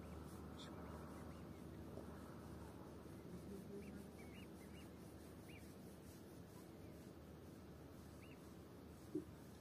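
Faint open-air ambience with a steady low wind rumble, and a few short, high chirps from birds now and then. A single brief knock about nine seconds in.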